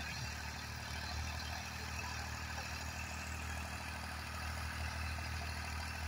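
Small engine of a homemade mini tractor running steadily under load as it pulls a plough through the soil, a low, even hum.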